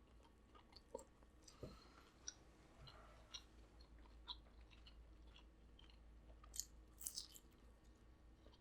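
Faint close-up eating sounds: quiet chewing with scattered soft mouth clicks and smacks.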